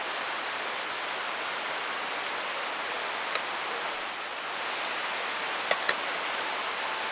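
Steady hiss with a few faint sharp ticks: one about three and a half seconds in, and two close together near six seconds.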